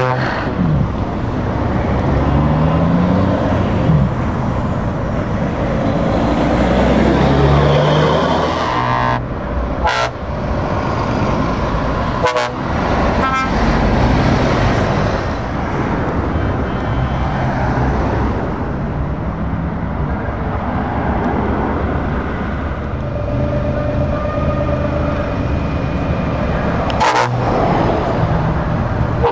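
Heavy trucks, among them Scania tractor units, drive past one after another with their diesel engines running and rising and falling in pitch through gear changes. There are a few short horn toots and several sharp knocks in between.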